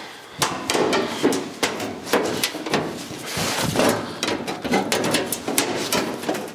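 Sheet-steel floor panel clanking and rattling in a quick, irregular run of knocks as it is pushed and worked by hand into place against the car's inner rocker.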